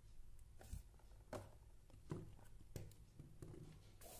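Several faint clicks and light taps from a metal eyeglass frame being handled and set down on a wooden table.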